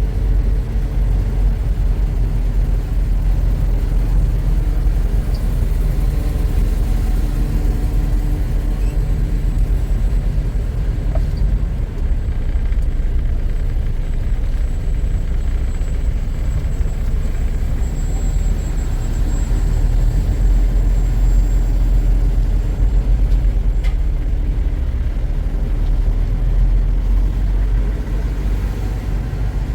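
Semi truck cab noise while driving: steady low engine and road rumble.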